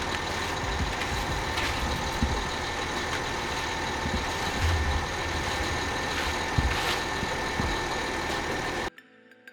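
Heavy truck engine running at steady revs, with a few low thumps along the way; it cuts off abruptly near the end.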